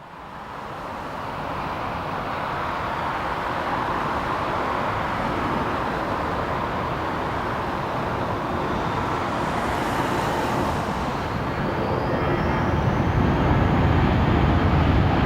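Jet airliner engines, a steady rush of noise that grows louder, with a high whine rising in pitch about three-quarters of the way through and a deeper rumble building near the end.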